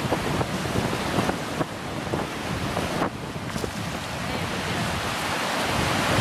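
River rapids rushing and foaming, with wind buffeting the microphone and a few light clicks.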